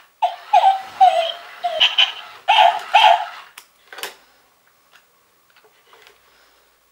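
Plush wired remote-control toy dog barking through its small speaker: repeated short, tinny electronic yaps, mostly in pairs. The barking stops about three and a half seconds in, followed by a couple of sharp clicks and faint handling noises.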